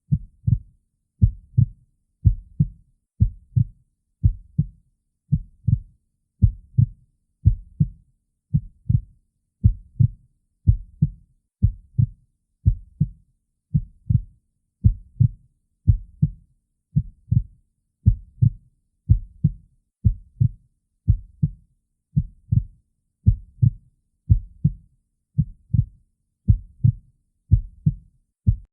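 Heartbeat as heard through a stethoscope: deep, muffled lub-dub thumps repeating at a steady, even pace.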